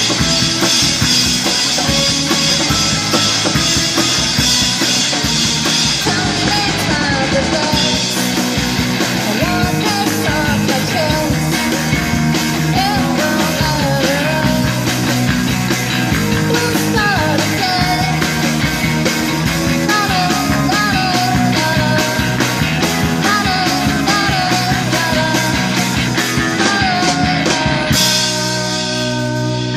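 Rock band playing live: drums, electric guitar, bass and a sung vocal. Near the end the drumming stops and held chords ring out as the song winds down.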